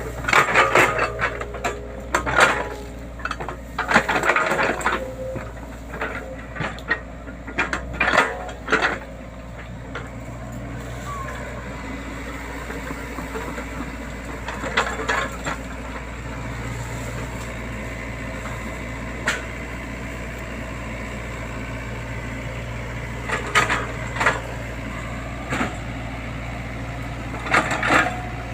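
Hydraulic excavator's engine running steadily, with repeated bursts of cracking and crunching, thickest in the first nine seconds and again in short clusters later and near the end, as the machine breaks wood and earth while clearing ground for a road.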